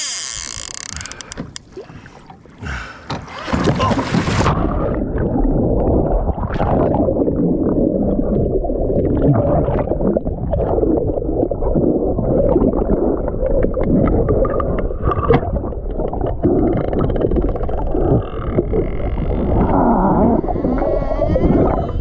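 Muffled churning and gurgling water close to the microphone, starting about three and a half seconds in and running on densely, dull and low with little treble.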